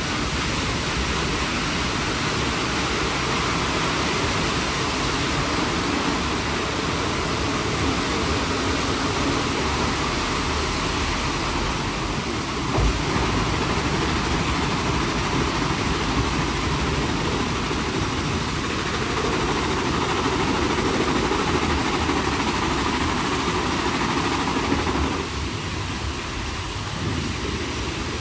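WashTec SoftCare² Pro rollover car wash running its shampoo wash, with SofTecs² foam brushes turning and water spraying in a steady wash noise. There is a single knock about 13 seconds in, and the noise drops somewhat about 25 seconds in.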